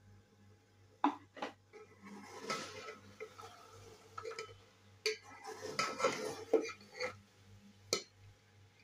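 Perforated metal skimmer scraping and clinking against the sides of a metal cooking pot while rice is turned over and mixed. Irregular knocks and scrapes, busiest in the middle, with a sharp clink near the end.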